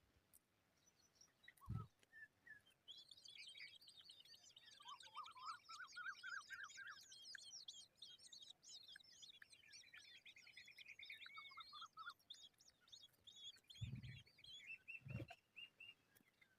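Baby birds chirping, a rapid clamour of high chirps lasting about ten seconds from about three seconds in, with a short buzzy trill in the middle. A few dull thumps near the start and end.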